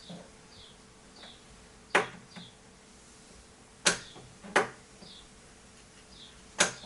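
Sharp clicks, four of them a second or two apart, from the power switches and connections of a vintage IBM PC XT setup being worked by hand, after it failed to power on. Faint short high chirps and a low steady hum sit underneath.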